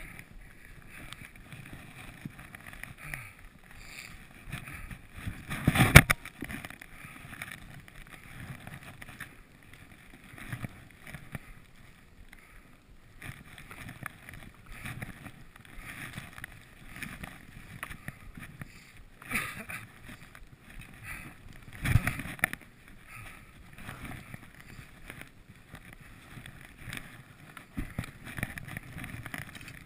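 Skis running through deep powder snow, a steady soft swishing that rises and falls with the turns. Two loud thumps stand out, about six seconds in and again about twenty-two seconds in.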